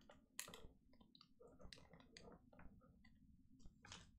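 Near silence broken by faint, irregular small clicks and taps, a dozen or so.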